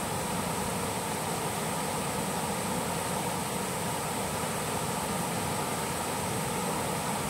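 Steady rush of river water flowing over rocks, an even noise with no breaks.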